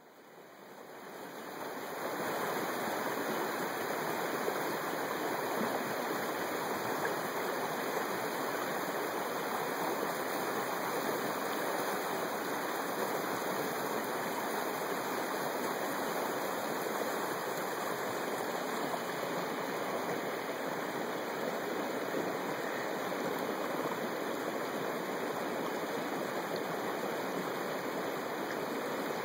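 Swollen stream rushing steadily, fading in over the first couple of seconds.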